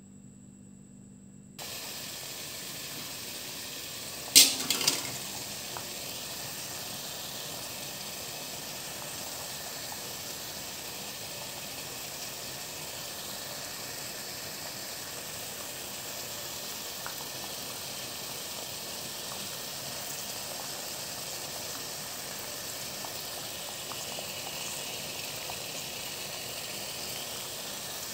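Steady hiss of water boiling and steaming in a steel pot beneath a plate set on a steaming rack, starting abruptly about two seconds in, with one loud clank about four seconds in.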